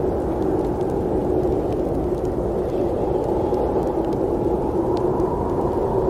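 Snowstorm wind blowing steadily as a dense, low rushing noise, with a few faint ticks on top.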